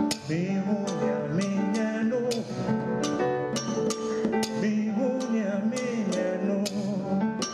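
Live acoustic music: a guitar plucked in a steady pattern of ringing notes, with a man's voice singing or humming over it.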